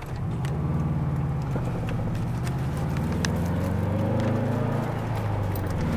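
2006 Subaru WRX STI's turbocharged 2.5-litre flat-four engine pulling away from a stop in first gear, heard from inside the cabin, its revs climbing steadily.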